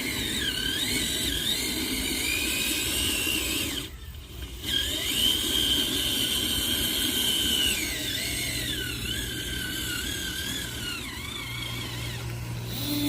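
The small electric motor and gearbox of a toy truck whining, the pitch wavering up and down as the load changes. It cuts out briefly about four seconds in, then starts again.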